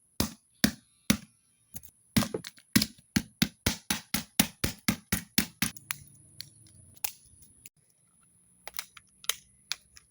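A flip phone being smashed with repeated hard blows: about twenty sharp strikes, quickening to around three a second, which stop about six seconds in and are followed by a few scattered knocks.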